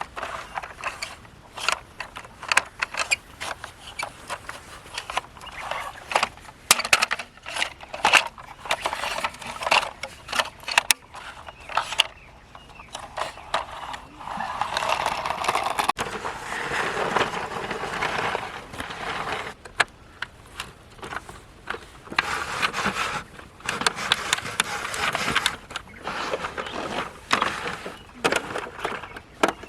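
Die-cast toy vehicles being handled, with many small clicks and knocks. A stretch of scraping, rolling noise comes in the middle.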